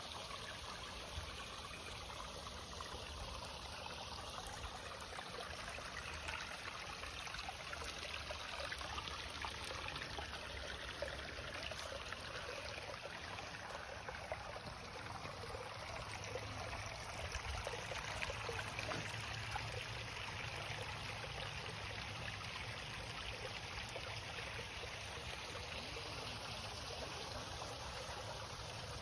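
Water running and trickling steadily down a small homemade waterfall.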